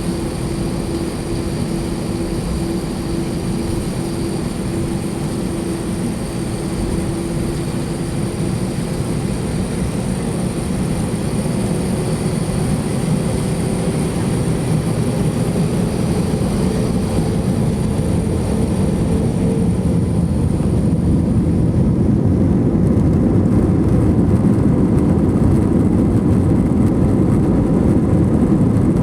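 Airbus A321-231 IAE V2500 jet engines and airflow heard inside the passenger cabin: a continuous rush of noise that slowly grows louder, with a steady engine tone that gradually rises in pitch through the first half and a high whine that fades out after about twenty seconds.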